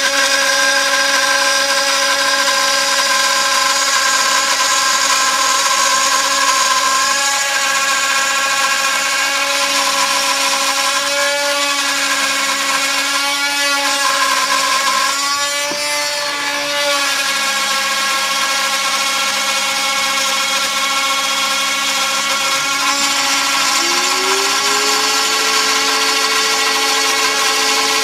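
TTA 3020 desktop CNC router milling wood flooring: the spindle runs with a steady whine while the cutter works the wood. The tones shift as the machine moves, and near the end a lower tone slides up and then holds.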